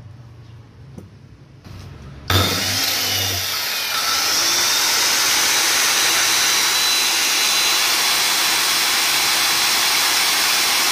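Makita angle grinder with a segmented diamond blade switched on about two seconds in, spinning up to speed, then running steadily at full speed with no load. It is cut off right at the end.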